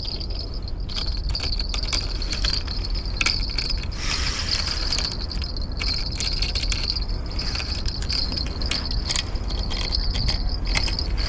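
Spinning reel working against a hooked tailor: a steady high whir from the reel with rapid clicking from the drag and handle as line is gained and given. Low wind rumble on the microphone underneath.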